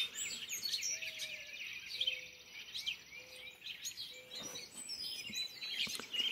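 Dawn chorus: many small birds chirping and singing at once, a dense mix of quick, high overlapping chirps and whistles.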